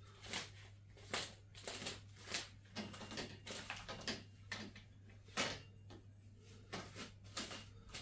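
Metal curtain grommets sliding and clicking along a metal curtain rod, with curtain fabric rustling, as the hung curtain's folds are pushed into place: short irregular clicks and scrapes, a few each second.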